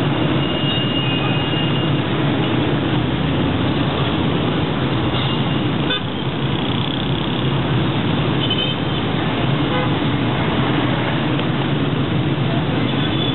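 Dense city traffic crossing an intersection: a steady mix of car, bus and motorcycle engines and tyres, with short car horn toots about a second in and again about two-thirds through.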